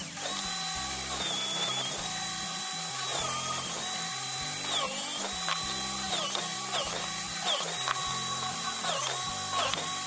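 Electric drill in a drill stand boring into wood. The motor runs with a steady whine that drops in pitch each time the bit bites into the wood under load, then climbs back up as it frees, several times over.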